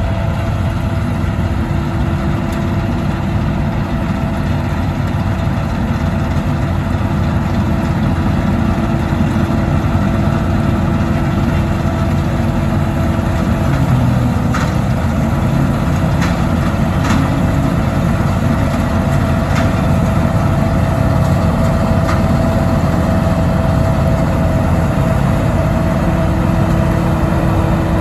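Dronningborg D2600 combine harvester's V8 engine and threshing machinery running steadily under load while it harvests, with a steady hum over a low rumble.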